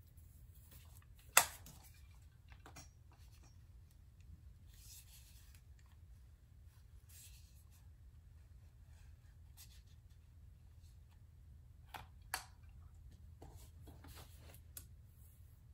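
Faint rustling and handling of wig hair being worked through a flat iron over a low steady hum, with a sharp click about a second in and two smaller clicks near the end.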